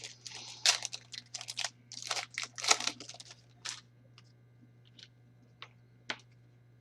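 Crinkling and rustling of trading card packs and cards being handled, a quick run of crackles for about four seconds, then a few scattered light clicks, over a steady low hum.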